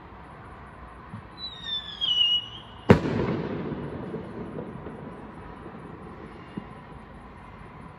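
Fireworks: a short whistle falling in pitch, then a single loud bang about three seconds in, followed by a long rumbling echo that slowly dies away.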